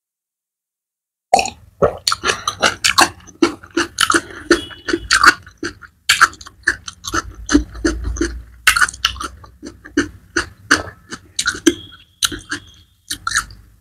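Close-miked mouth sounds: a rapid run of wet lip smacks and tongue clicks, starting about a second in.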